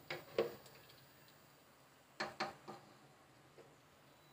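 A spoon knocking lightly against the cooking pot while stirring a curry: a few faint clicks, two near the start and three more about two seconds in.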